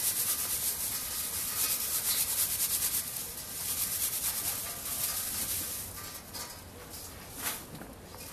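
Dry cavolo fiolaro seed pods and stalks crackling and rustling as they are crushed and rubbed between the hands, with the loose seeds rattling onto a plastic tray. The sound is busiest for the first five seconds, then tapers off.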